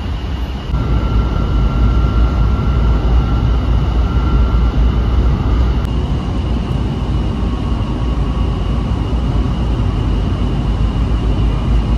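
Running noise inside a Honolulu rail train car in motion: a steady rumble with a faint high whine, getting louder about a second in.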